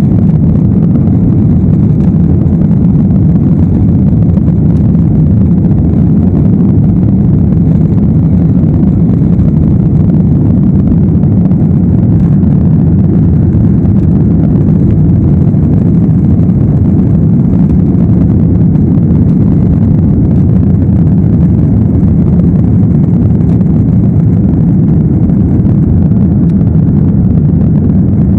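Boeing jet airliner's engines at takeoff power, heard from inside the cabin as a loud, steady low rumble.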